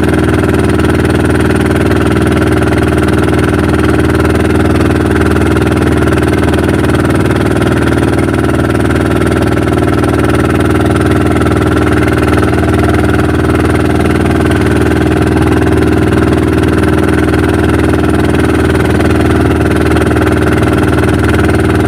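Outrigger fishing boat's engine running steadily under way, holding one unchanging pitch throughout.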